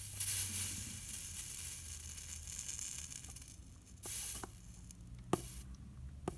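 Flux sizzling as a soldering iron melts solder onto the joint between a lamp vent cap and the stained glass shade. A long sizzle over the first three seconds or so fades out, then two shorter sizzles follow about four and five seconds in.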